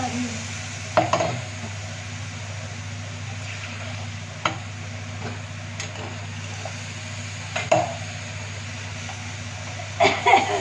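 Steel utensils and cookware clinking on a gas stove: sharp single knocks a few seconds apart, then a quick cluster of clinks near the end, over a steady low hum.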